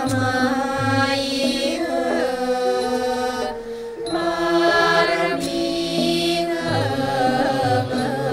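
Male chorus singing a Thai royal tribute song in long, slowly gliding held notes, accompanied by a Thai classical ensemble with bamboo flute (khlui), gong circle and drums. A brief pause for breath comes between two phrases near the middle.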